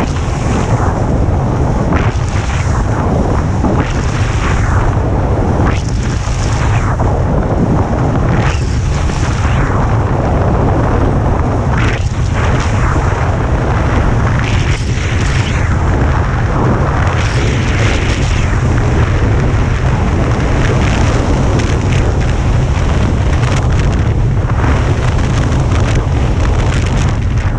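Wind buffeting a moving action camera's microphone as a loud, steady low rumble, with a hissing scrape of a snowboard carving across groomed snow that swells every second or two with the turns.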